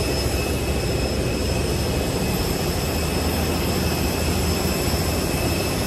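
Steady jet aircraft noise on the apron: a continuous rushing roar with several high-pitched whines held at a constant pitch over it.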